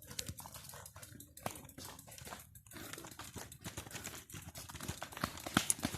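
Footsteps and scuffs on a rough dirt trail as a bicycle is pushed uphill: an uneven run of knocks and crunches, louder in the last couple of seconds.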